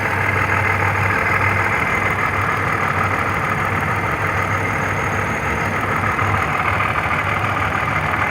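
Supercharged 3.8-litre V6 of a Pontiac Grand Prix GTP idling steadily, heard close up under the hood while it is setting a cylinder misfire code. It is not knocking.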